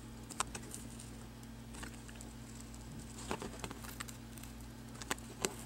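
Scattered small clicks and taps, a few at irregular moments, as fingers handle a cracked glass touchscreen digitizer and peel thick rubber cushioning tape off its edge, over a steady low hum.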